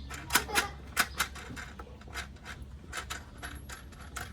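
Irregular light clicks and taps of small metal mounting hardware, washers and screws, being handled and fitted, over a low steady hum. The sharpest clicks come in the first second.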